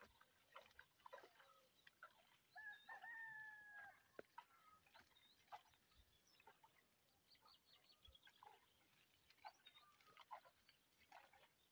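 A rooster crows once, faint, about two and a half seconds in: one long held call lasting about a second and a half. Scattered short chirps sound around it.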